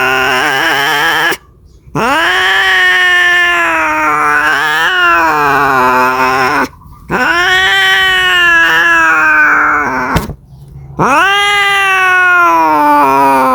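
Domestic cat yowling, the long drawn-out mating call of a cat crying for a mate. One wail ends just after a second in, then three more follow, each lasting three to four seconds, swooping up quickly and then sliding slowly down in pitch, with brief silent gaps between them.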